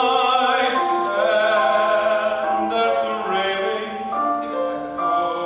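A man singing a musical-theatre ballad into a microphone, holding notes with vibrato, over instrumental accompaniment.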